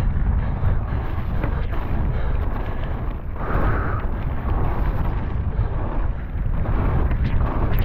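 Heavy wind buffeting on a helmet-mounted camera's microphone during a fast downhill mountain-bike descent, over the hiss of tyres on a loose dirt trail, with a few sharp knocks from the bike over bumps.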